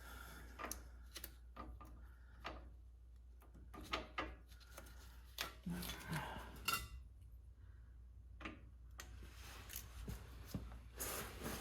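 Scattered light metal clicks and clinks, with some scraping, as small steel parts of a Spartan ratcheting locker in a Chrysler 8.25 differential are fiddled with by hand while trying to refit a dropped pin.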